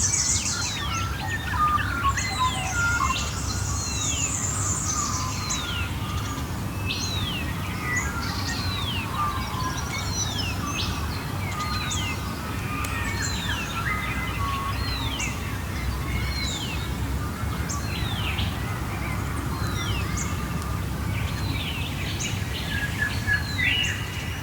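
Dawn chorus of Australian birds. One bird repeats a short falling whistle about once a second while others chirp and trill around it, over a steady low rumble.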